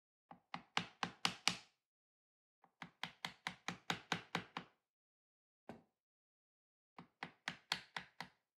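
A narrow chisel struck with a mallet, chopping waste out of hard maple. There are quick runs of sharp strikes, about four a second: roughly six, then about eight, a single strike, then about six more.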